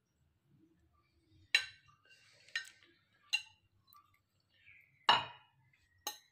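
A metal spoon clinking against glass dishes while chopped ingredients are scraped off a glass plate into a glass bowl: about five separate short clinks, the loudest about five seconds in.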